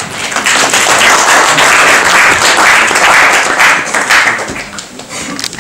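Audience applauding: a dense patter of many hands clapping that starts suddenly and dies away near the end.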